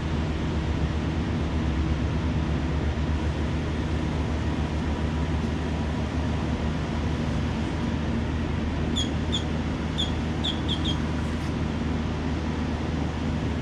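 Mini excavator's diesel engine running steadily, with a cluster of about six short high chirps a little past the middle.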